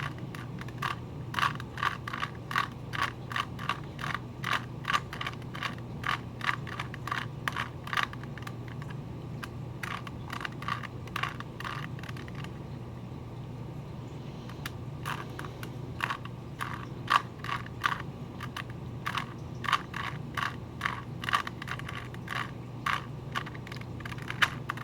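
Plastic Rubik's Cube being turned by hand: quick, irregular clicks and clacks as its layers rotate, two or three a second, with a pause of about two seconds midway. A steady low hum runs underneath.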